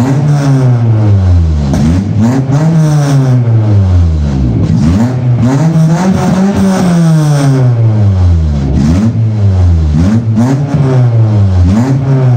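Seat Ibiza 6K1's 1.4-litre, 44 kW four-cylinder petrol engine revved repeatedly at standstill, heard from the exhaust. It makes about six rising-and-falling revs, with one longer, higher rev in the middle.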